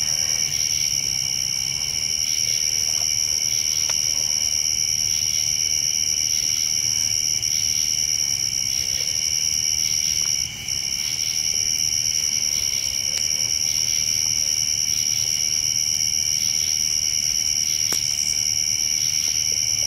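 Steady chorus of night insects: several continuous high-pitched trills layered together, dipping briefly about ten and a half seconds in.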